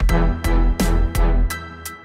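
Background music: a steady beat with heavy bass and sharp drum hits under pitched instrument notes.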